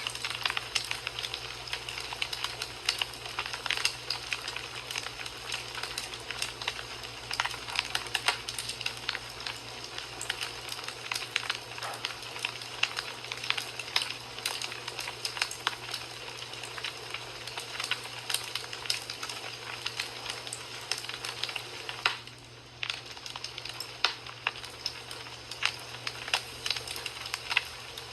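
Fireplace fire crackling: dense, irregular pops and snaps over a steady hiss, with a brief lull about three-quarters of the way through.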